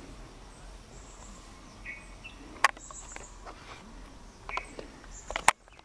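Outdoor natural ambience: faint, short high chirps now and then over a quiet background, with a few sharp clicks, the loudest about two and a half and five and a half seconds in.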